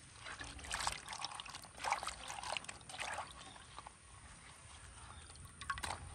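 Water sloshing and splashing in a clay bowl as hands rub and rinse green chillies in it, in irregular bursts over the first few seconds, quieter for a moment, then another splash near the end.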